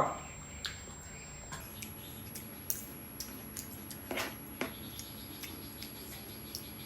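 Eating sounds: scattered light clicks of cutlery against a plate, with the stronger clicks about four seconds in, and chewing of gado-gado.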